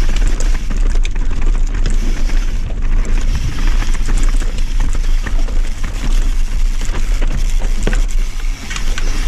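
Mountain bike descending a rocky trail at speed, with tyres crunching over stones and the bike rattling in many short clicks. Wind rushes over the microphone. The noise dips briefly near the end.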